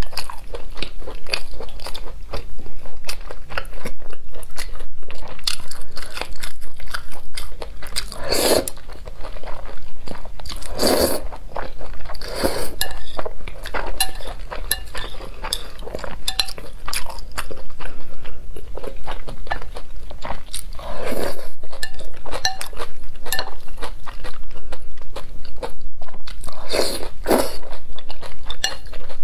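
Close-miked chewing and crunching of cold wide noodles (mianpi) in sesame sauce, with chopsticks clicking and scraping in a glass bowl. Dense small mouth clicks run throughout, and several louder, longer noises stand out now and then.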